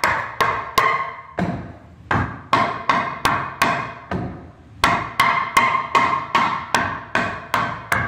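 Hammer blows on a new wooden wall bottom plate, driving it into place under the studs: about twenty sharp strikes at two to three a second, each with a short ring, with a brief pause about halfway.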